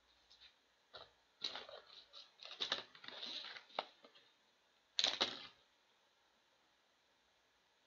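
Trading cards being handled and shuffled by hand, an irregular run of rustles, slides and light clicks in two bunches, the second about five seconds in.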